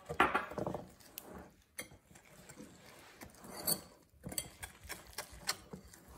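Wire whisk beating gram flour and water into a thick batter in a glass bowl. The wires click against the glass and scrape through the stiff mix in uneven strokes, loudest in the first second.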